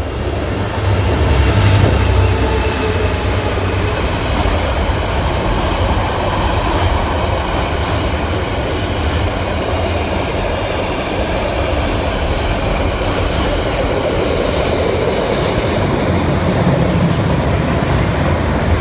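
Class 66 diesel locomotive passing close by at speed, its engine rumble loudest about a second or two in, followed by a long container freight train rolling past with steady rail noise and clickety-clack of the wagon wheels over the rail joints.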